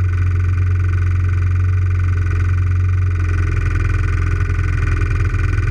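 Quad (ATV) engine idling steadily as a low, even drone, shifting slightly a little over three seconds in.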